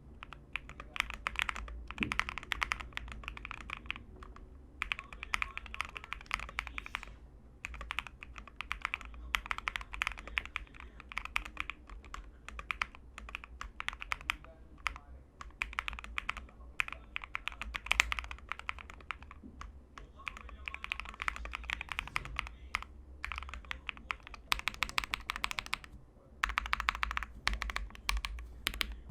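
Fast typing on a Bakeneko 60 custom mechanical keyboard with lubed Quartz linear switches and PE foam: a dense run of key strokes in bursts of a few seconds, with brief pauses between them.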